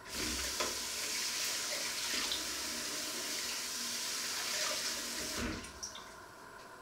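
Kitchen tap running onto a plate as it is rinsed in a stainless steel sink, with a few light knocks of crockery; the water is shut off about five and a half seconds in.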